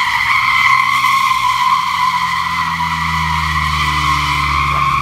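A car's tyres squealing continuously in a long drift or burnout, one unbroken screech that cuts off just after the end, with the engine running underneath, its note slowly climbing.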